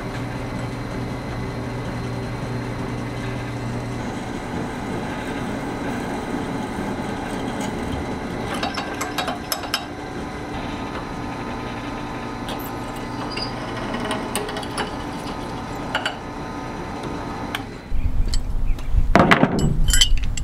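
Benchtop drill press motor running steadily. From about 4 s in the twist bit cuts into a steel bar with scattered clicks of chips. Near the end it gives way to louder rough strokes of the steel piece scraping across a wooden board.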